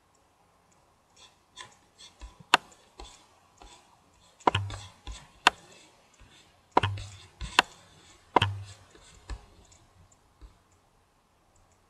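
Computer mouse clicking and being handled on the desk while a web map is dragged and panned: irregular sharp clicks, several louder, and three heavier knocks with a dull thud.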